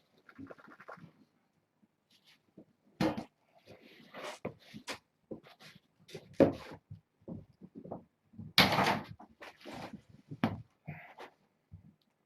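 Irregular knocks, taps and rustling. There is a sharp knock about six seconds in and a longer scuffling rustle around nine seconds.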